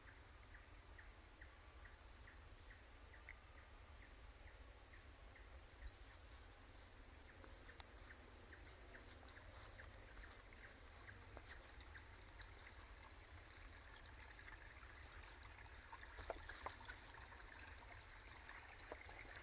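Faint trickling water, with a few scattered light clicks.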